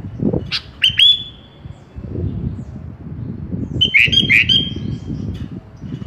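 Sooty-headed bulbul (kutilang) calling: two bursts of quick rising whistled notes, each ending in a held high whistle, one near the start and one a little past the middle, over a low steady background hiss.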